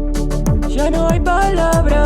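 Music with a steady beat: deep kick drums that drop in pitch about twice a second, quick hi-hat ticks, and a sliding melody line that comes in about a third of the way through and steps between held notes.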